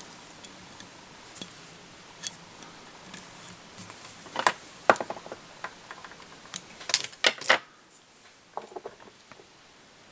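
Scattered light clicks and ticks of fly-tying tools and thread being handled at the vise while the thread head is wound and finished. The sharpest clicks come about four and a half seconds in and in a quick cluster around seven seconds.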